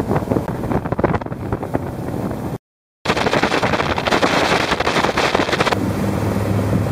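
Motorboat running fast, about 27 knots, with heavy wind buffeting on the microphone and rushing water noise. The sound cuts out briefly about two and a half seconds in. Near the end the wind noise drops away, leaving a steady low engine hum.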